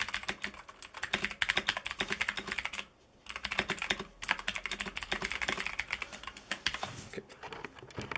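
Fast typing on a Motospeed CK62 60% mechanical keyboard with Cherry MX Blue switches: a dense stream of clicky keystrokes, pretty loud, with a short pause about three seconds in.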